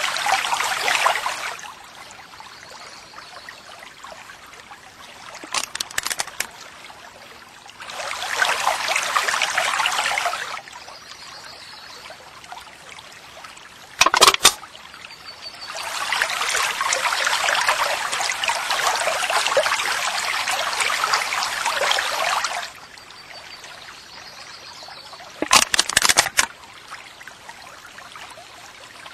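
Running water trickling in three stretches of a few seconds each, every one starting and stopping abruptly, with short sharp clicks in the gaps: one faint, then two louder ones around the middle and near the end.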